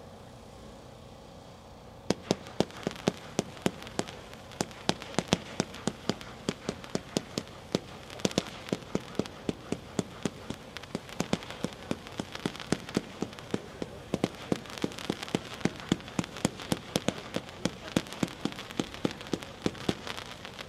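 A Phantom Swashbuckler 72-shot consumer fireworks cake firing: a rapid, even string of sharp shots, about three or four a second, starting about two seconds in.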